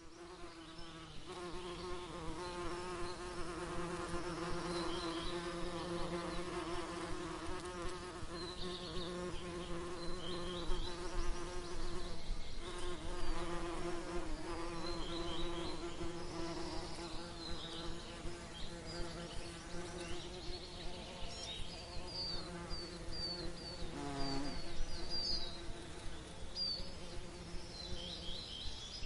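Honeybees buzzing as they forage among flowers: a steady hum that wavers in pitch and loudness. Small birds chirp in short high notes over it.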